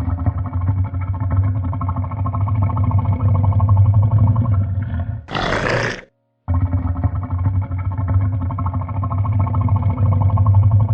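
Crocodile growling: a deep, pulsing rumble lasting about five seconds, broken by a short hiss, then repeated.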